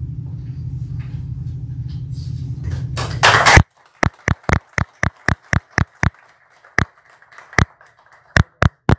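Steady low hum, then a short loud burst that cuts off suddenly about three and a half seconds in. Then a small group applauding, heard as separate sharp claps about four a second that thin out toward the end.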